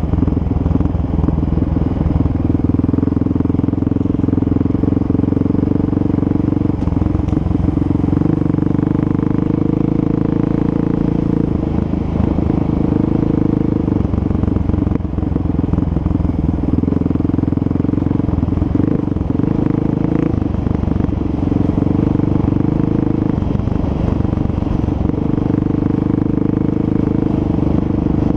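Off-road vehicle engine running steadily at cruising revs on a dirt trail, its pitch holding mostly even with a few brief dips, over rattle from the rough ground.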